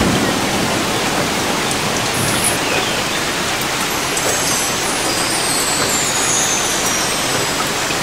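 Ocean surf washing on the beach: a steady, even rush of noise.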